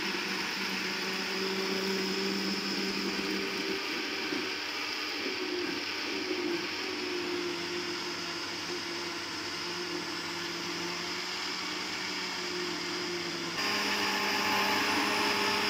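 Countertop blender motor running steadily with a constant hum, blending banana, blueberries, almonds and milk into a smoothie. It gets louder near the end.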